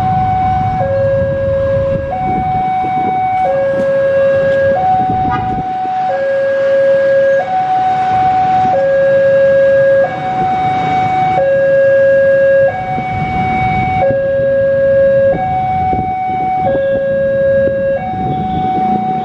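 Railway level-crossing warning alarm sounding as a train approaches. It alternates steadily between a high and a low electronic tone, each held a little over half a second, over a low background rumble.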